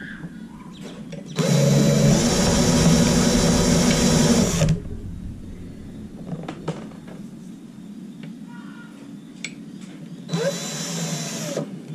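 Cordless drill turning a VEVOR hand wire-stripping machine. It runs steadily for about three seconds as insulated wire is drawn through the blades, and runs again briefly near the end. Light clicks and rustles of wire handling come between the runs.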